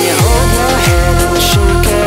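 Electronic pop backing music. The beat drops about a quarter-second in, with deep bass hits that slide down in pitch, repeating roughly every 0.6 s, under crisp hi-hat taps and a held synth note.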